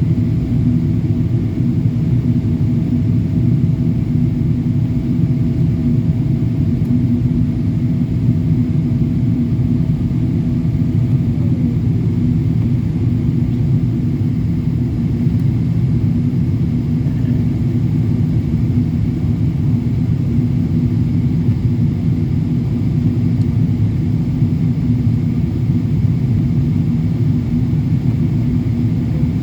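Boeing 777-200LR in flight on descent, a steady deep rumble of engines and airflow as heard inside the cabin. A faint steady whine drops in pitch about eleven seconds in.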